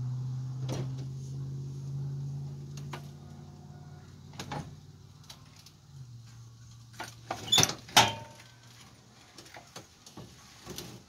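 Hydraulic floor jack letting a car's fuel tank down: a steady low groan while the jack lowers, which stops for a couple of seconds and then starts again. Scattered clicks and knocks come throughout, with two sharp metal clunks about seven and a half and eight seconds in as the tank settles.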